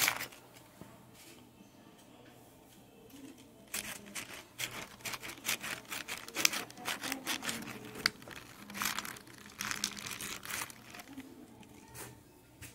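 Hands squishing and turning raw chicken pieces in an aluminium bowl: irregular wet squelches and clicks, starting a few seconds in.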